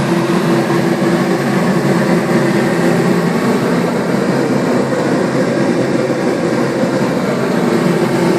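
Dust-extraction exhaust fan running steadily, a loud even blowing noise with a constant hum.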